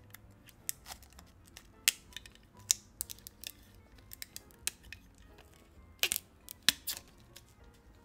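Clear protective plastic film being peeled off a handheld vacuum cleaner's body, with plastic parts handled: an irregular string of sharp crackles and clicks, the loudest about two and three seconds in and again around six to seven seconds in.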